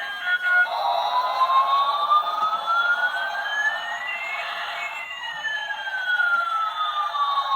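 Electronic siren sound with two tones sliding slowly in opposite directions, one rising as the other falls. They cross about halfway through and keep gliding apart in one long slow sweep.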